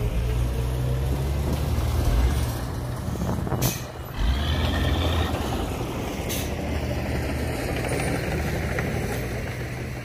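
Loaded dump truck's diesel engine running steadily under load as it crawls over a dirt heap, with two short hisses of air a little under four seconds in and again about six seconds in.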